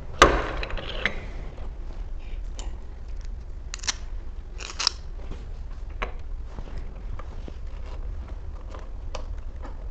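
Small clicks and light rattling of metal deadbolt parts and screws being handled, with a sharp click just at the start and two brief scraping rustles about four and five seconds in.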